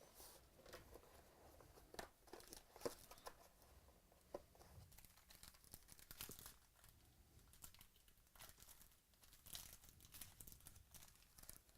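Faint tearing and crinkling of the packaging on a sealed box of trading cards as it is opened, with scattered light clicks and rustles.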